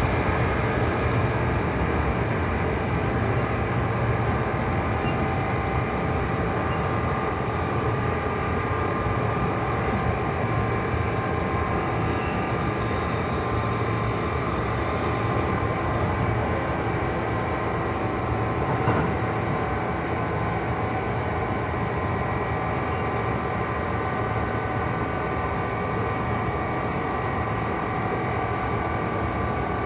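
Kintetsu 2800 series motor car running at speed, heard from inside: the Mitsubishi MB-3110A traction motors and gears whine at a steady pitch over the rumble of the wheels. The drive couplings add an unusual noise, which makes this low-pitched car sound unlike others of its type. A single knock comes about 19 seconds in.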